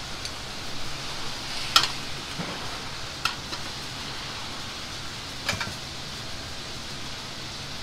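Ceramic ramen bowls clinking as they are handled and set down on a steel counter: three sharp clinks, the first and loudest about two seconds in, over a steady kitchen hiss.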